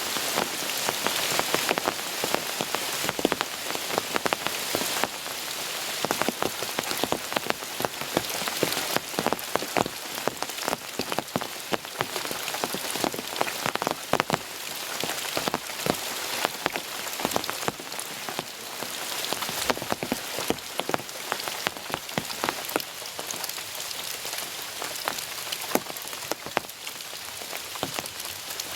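Heavy rain falling steadily, with many sharp individual drop hits close to the microphone.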